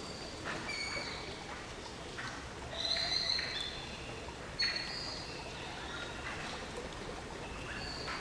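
Steady rain falling, with birds chirping over it in short, high calls, the loudest cluster about three seconds in.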